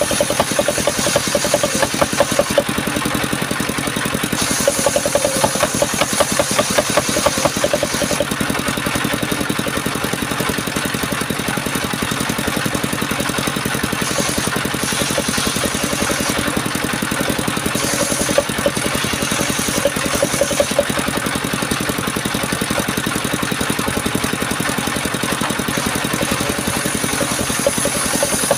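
Engine of a portable circular sawmill running steadily, with a higher hiss from the saw coming and going several times as the blade cuts through timber.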